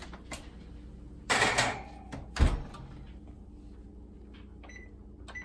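Oven door shut with a heavy thump about two and a half seconds in, after a brief rushing scrape. A few faint clicks follow near the end.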